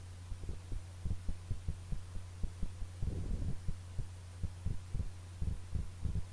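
A steady low hum under soft, irregular low thumps, with a denser patch about three seconds in, as hands brush beaten egg onto a brik pastry sheet and press its edges down on a wooden table.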